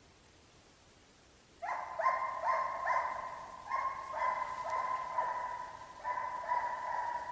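Russian hounds baying on a trail: a string of long, overlapping calls that starts abruptly about one and a half seconds in and keeps going.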